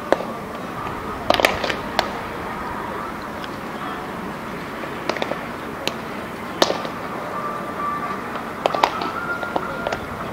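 Baseballs popping into leather gloves during a game of catch: a string of sharp, separate smacks, the loudest about a second and a half in and again after six seconds.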